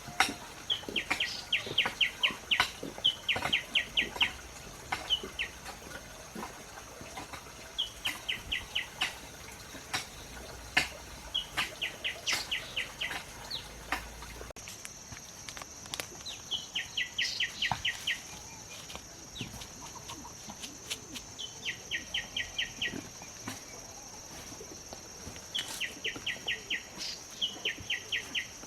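A bird calling in short bursts of quick, evenly repeated high notes, about seven a second, each burst lasting around a second and recurring every couple of seconds.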